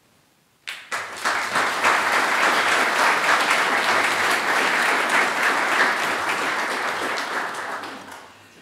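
Audience applauding: many people clapping, starting suddenly about a second in and dying away near the end.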